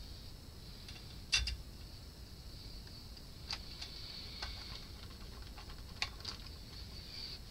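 Scattered sharp clicks and taps as hands handle the metal-can output transistors on an amplifier's heatsinks. The loudest click comes about a second and a half in, with lighter ones later.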